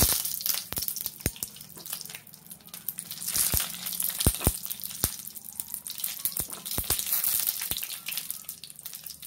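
Dried red chillies sizzling in hot oil in a nonstick pan, with scattered sharp clicks and knocks as a wooden spatula stirs them against the pan.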